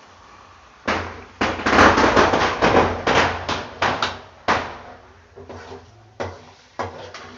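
Raw chicken pieces tipped into a pot of frying masala go in with a dense, noisy burst lasting a second or two. A metal ladle then knocks and scrapes against the pot several times as the chicken is stirred, the knocks getting lighter toward the end.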